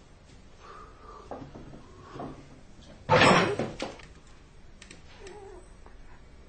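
Household door-and-cupboard knocking with a brief squeak, then one loud crash about three seconds in, followed by a few lighter knocks.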